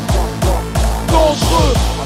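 Fast, hard electronic dance music of the gabber kind played from DJ decks: a heavy kick drum that drops in pitch on every hit, about three beats a second, under a higher melodic line that bends in pitch.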